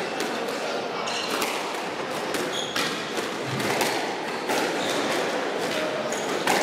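Squash ball being struck by racquets and hitting the court walls, a series of sharp knocks at uneven intervals, with short squeaks of court shoes on the wooden floor.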